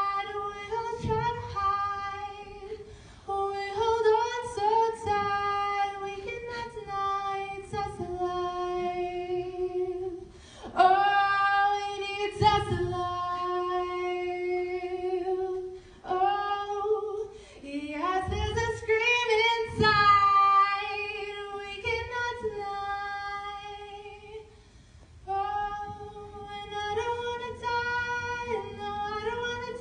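A woman's solo voice singing a cappella, unaccompanied, holding long notes in between shorter, moving phrases.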